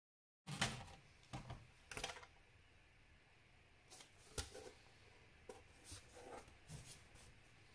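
A string of light clicks and knocks from a laptop's plastic casing and small tools being handled, about nine in all, the loudest one at the start.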